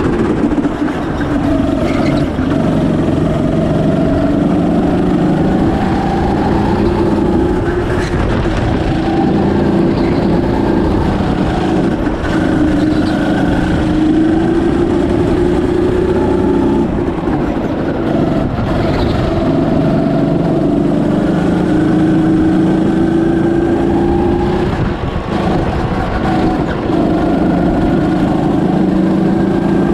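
Birel N35 rental go-kart's engine running hard through laps, heard from on board, its pitch rising and falling again and again as it speeds up and slows for corners, over a steady low rumble.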